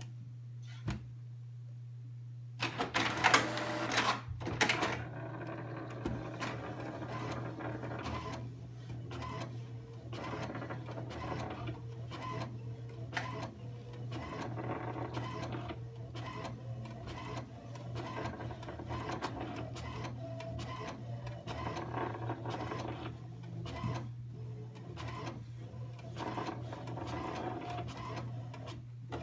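HP DeskJet Ink Advantage all-in-one printer running a copy. Its mechanism starts with a loud clatter about three seconds in, then keeps up a continuous mechanical whirring with frequent small ticks while the scanner carriage moves under the glass. A steady low hum runs underneath.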